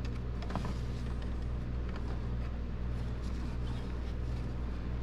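A steady low hum with a faint haze of background noise, and a couple of faint clicks of hand work on the engine's intake in the first second.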